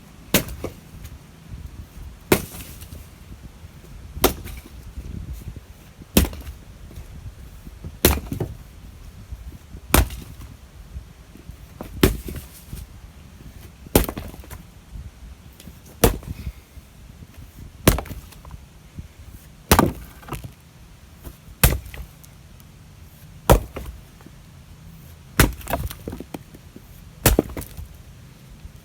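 Firewood being split by hand: a sharp chop of the blade into wood about every two seconds, some strikes followed by a crack of the wood splitting apart.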